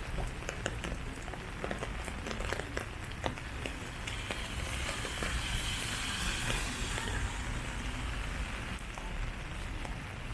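Outdoor walking ambience on a city park path: a steady noisy background with many small scattered clicks and taps, and a hiss that swells in the middle and fades again.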